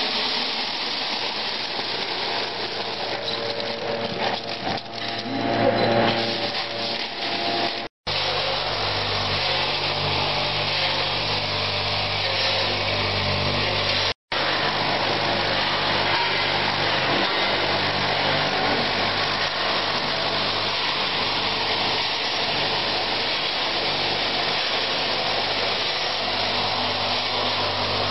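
Peanuts poured into a gas-fired peanut roaster, then the roaster running with a steady low hum under the hiss and rattle of the nuts tumbling inside. The sound drops out briefly twice.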